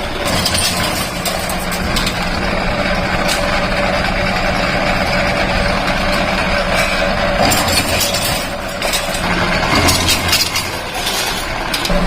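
Steady factory machinery noise with a constant low hum. A run of short metallic clinks and knocks comes in the last few seconds.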